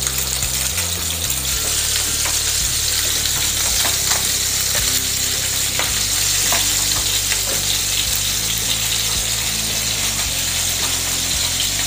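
Sea bass fillets frying in olive oil and freshly added butter in a non-stick pan: a steady sizzle with scattered small crackles and pops.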